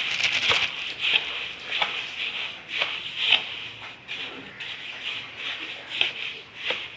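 Spatula stirring and scraping a dry mix of roasted semolina and sugar around a brass pot: repeated, irregular gritty scrapes over a steady hiss.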